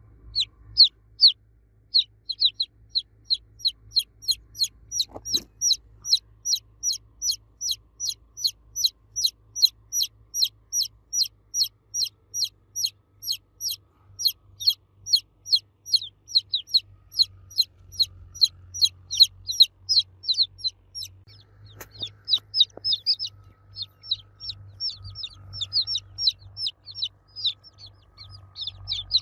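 Baby chick cheeping loudly: short, high, falling peeps repeated about three a second. This is the call of a chick crying for the mother hen. The series breaks off briefly around the 21-second mark, where there is a click.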